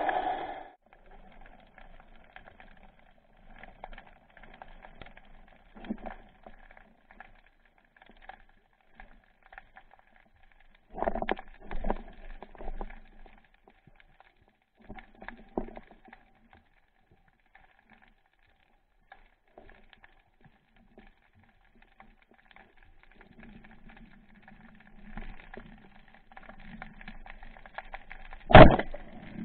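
Underwater ambience on a spearfishing dive: faint scattered clicks and knocks, with a faint steady hum. Near the end a single sharp, loud crack of a band-powered speargun being fired.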